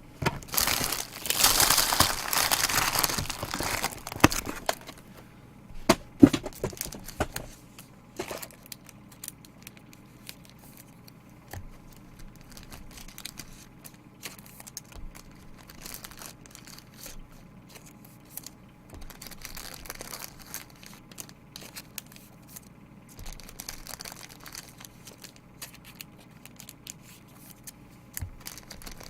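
Plastic wrapping on trading-card packaging being torn open and crinkled, loudest in the first four seconds. After that come light rustles and small clicks as cards and packaging are handled.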